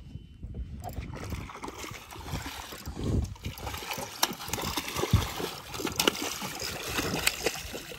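Water splashing and trickling, with a few sharp knocks scattered through it.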